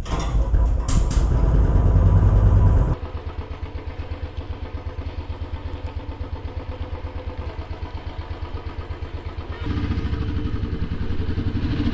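2019 Royal Enfield Classic 500's single-cylinder engine, just started, runs fast for the first few seconds and then settles to an idle with a quick, even thump. Near the end it gets louder as the bike pulls away at low speed.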